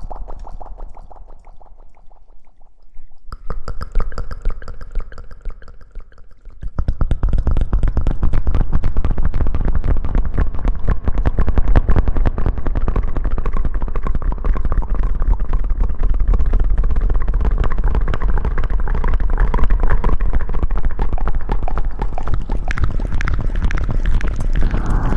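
Close-miked rustling and rubbing right against the microphone: a dense, rapid crackle with a heavy low rumble. It gets much louder about seven seconds in and keeps going.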